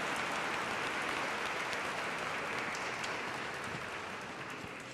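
A crowd of guests applauding, the clapping slowly dying away toward the end.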